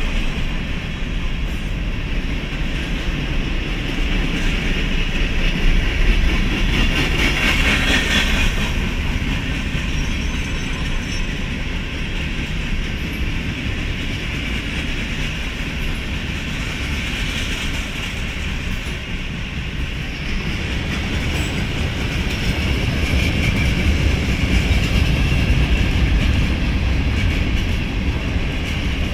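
Freight train cars (boxcars and tank cars) rolling past close by: a steady rumble of steel wheels on the rails with a clickety-clack over the rail joints.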